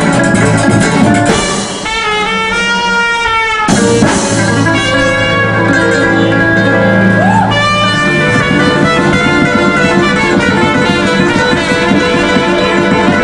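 Latin-Caribbean dance-band music with drums, carrying on at a steady groove; about two seconds in, one long held note with a wavering pitch rises over the band.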